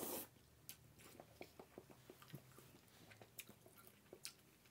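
A brief slurp of instant cup noodles right at the start, then faint chewing with soft, irregular wet clicks of the mouth.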